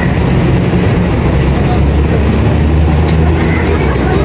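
City road traffic passing close by, cars going past with the low steady drone of a heavy engine that grows louder in the middle.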